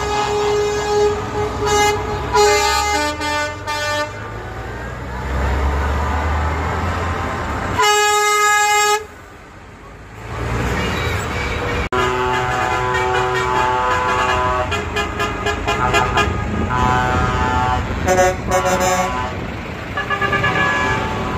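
Truck air horns sounding again and again at several different pitches as Scania trucks drive past, some blasts long and some in short quick toots, over the low rumble of diesel truck engines, with a short lull about nine seconds in.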